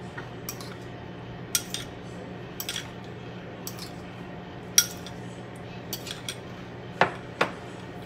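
Utensil clicking and scraping against a bowl, a scattering of light clicks with two louder knocks near the end. A steady low hum runs underneath from the microwave oven.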